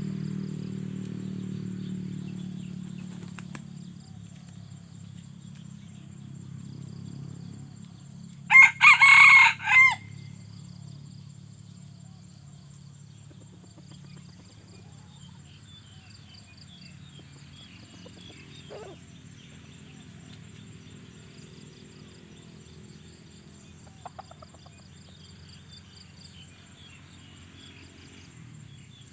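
Red junglefowl rooster crowing once, about nine seconds in: a loud, short crow broken into a few quick syllables. Under it a low hum fades away over the first few seconds.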